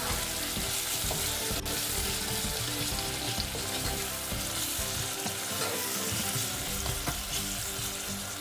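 Sliced onions with whole spices frying in oil in a pot, sizzling steadily while a wooden spoon stirs them.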